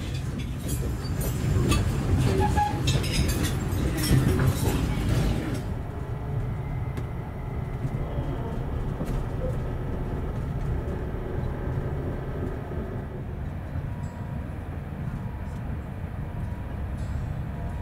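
Dining-car clatter of cutlery and crockery with low chatter for the first few seconds, then a sudden change to the steady low rumble of a diesel-hauled passenger train running, heard from inside the carriage, with faint steady tones over it.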